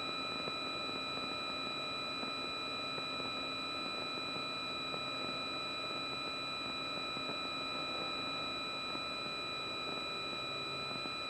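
Steady hiss with a constant high-pitched electrical whine on an aircraft's headset intercom feed, unchanging throughout.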